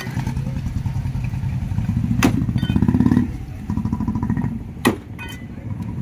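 Motorcycle engine running at idle close by: a steady low pulsing throb that eases a little after about three seconds. Two sharp knocks cut through it, about two and five seconds in.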